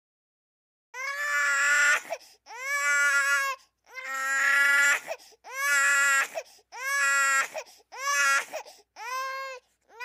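Infant crying: about seven wails of roughly a second each, with short catches of breath between, starting about a second in.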